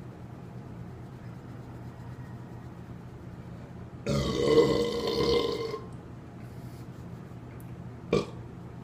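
A man lets out one long loud burp, about a second and a half long, starting about four seconds in. A brief sharp click follows near the end.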